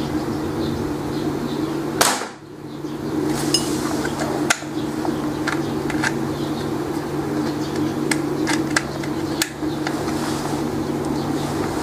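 Homemade marble gun firing once about two seconds in, a single sharp crack, followed by a few fainter clicks, over a steady low hum.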